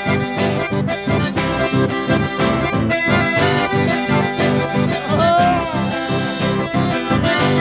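Accordion-led dance music played by a live band, with a steady, quick bass beat.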